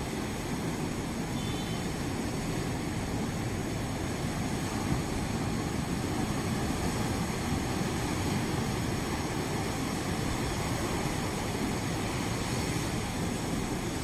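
Ocean surf breaking over rocks and sand: a steady, low rushing wash.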